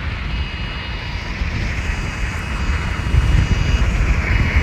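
Road and wind noise inside a car driving fast on a highway: a steady low rumble with a hiss above it, growing louder about three seconds in.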